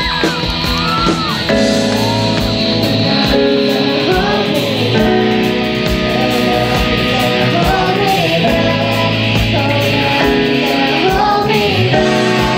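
Live worship band music: a young girl singing lead with men's voices singing along, over guitars and a full band.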